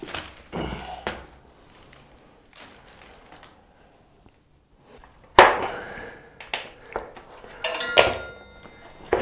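Studded fat-bike tire and wheel rim knocking and thudding as the tire is worked by hand on the rim. There are a few knocks at the start, a quiet pause, a loud thunk about five seconds in, then more knocks with a brief metallic ring near the end.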